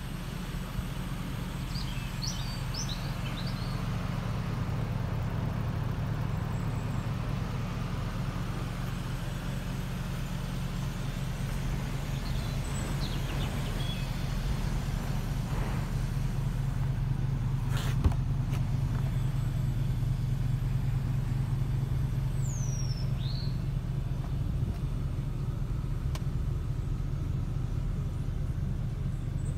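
2017 Porsche Panamera Turbo's twin-turbo V8 idling steadily, a low even hum. A few bird chirps come and go over it, and there is a single sharp click partway through.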